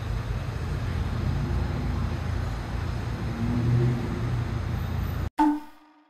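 Steady low ambient rumble with a faint hiss. It cuts off suddenly about five seconds in, and a short ringing tone follows and fades away.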